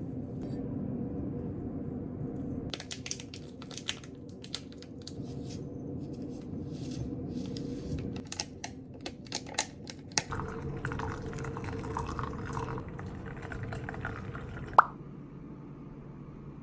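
Scattered small clicks and taps, then a few seconds of liquid running or pouring, ending with one sharp clink that rings briefly.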